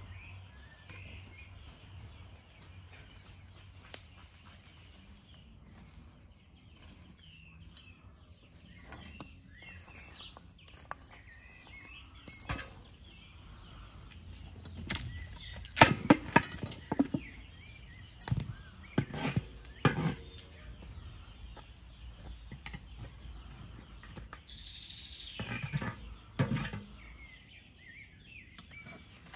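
Outdoor sound with birds chirping now and then and scattered knocks and clatter, which come thickest and loudest about halfway through.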